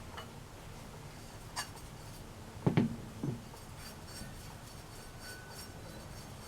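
Light handling noises from tools and oil-filter housing parts: a faint click about a second and a half in, then two short, dull knocks about half a second apart just before the middle.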